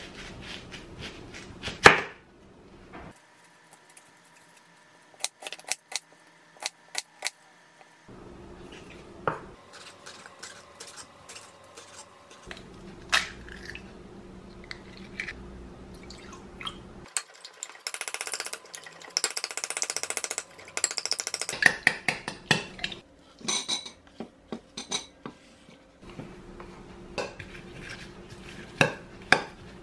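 Kitchen food preparation: a knife cutting an onion on a wooden cutting board, eggs cracked into a glass mixing bowl, then a fork beating the eggs and vegetables, clicking against the glass. Scattered knocks and clinks throughout, with a few seconds of hiss past the middle.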